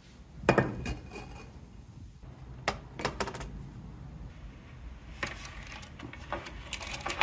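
Plastic rain-gutter and board track pieces handled and knocked against a stone bench top: clusters of sharp clicks and clatters about half a second, three, five and seven seconds in, over a steady low rumble.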